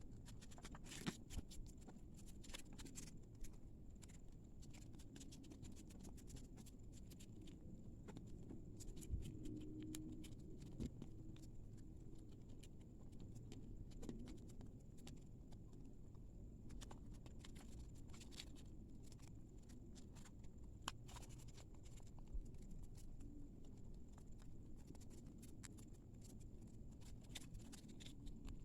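Faint rustling and crackling of origami paper being handled, folded and creased, with scattered small clicks and scrapes.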